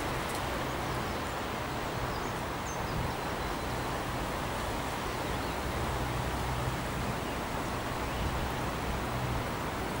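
Steady outdoor ambience dominated by wind buffeting the microphone, a low rumble. A few faint high bird chirps come in the first few seconds.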